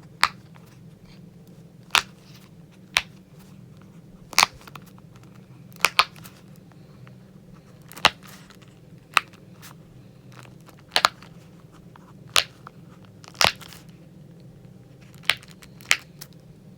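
Unicorn-shaped silicone pop-it fidget toy having its bubbles pressed one at a time, each giving a single sharp pop, about one a second with short irregular gaps, over a faint low hum.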